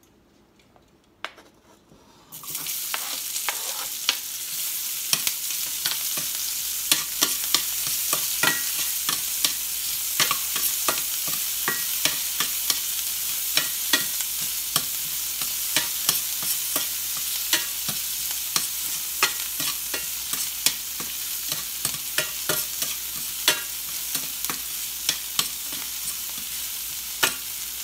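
Food sizzling in hot oil in a stainless steel skillet, with metal tongs clicking and scraping against the pan as it is stirred. The sizzle starts suddenly about two seconds in, after a near-silent moment.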